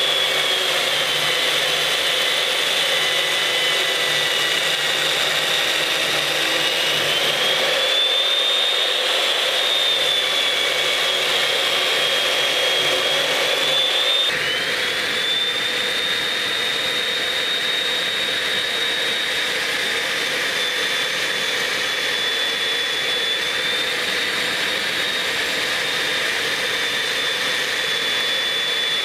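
Makita chain mortiser running under load as its cutting chain plunges into a timber post. The motor's whine sags and recovers in pitch as it bites, with an abrupt change in tone about halfway through.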